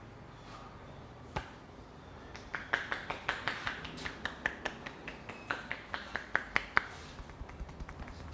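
A masseur's hands percussing on a head in a barber-style head massage: one sharp click about a second in, then a quick run of sharp slaps and snaps, about four or five a second, for some four seconds.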